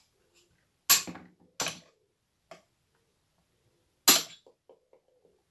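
Small hammer striking the handle of a ratchet wrench set on a Homelite hedge trimmer engine, knocking a fastener loose: three sharp metallic blows, about a second in, just after, and about four seconds in, with a light tap between the second and third.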